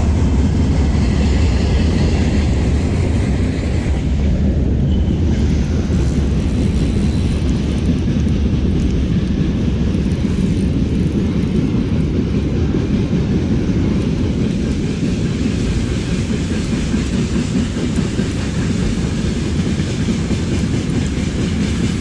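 Strong wind buffeting the microphone: a loud, steady low rumble with no break.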